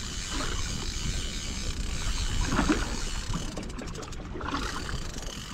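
Wind buffeting the microphone over water washing against a small boat's hull at sea, a steady low rumble with a few faint brief sounds in the middle.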